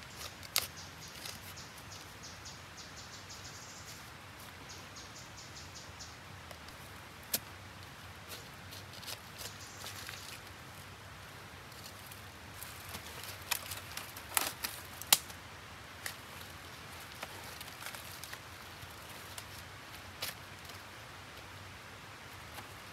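A machete digging and chopping into forest soil around a wild root: scattered sharp knocks and scrapes, a cluster of the loudest about fourteen seconds in. A high, rapidly pulsing chirp sounds over a faint steady background during the first six seconds.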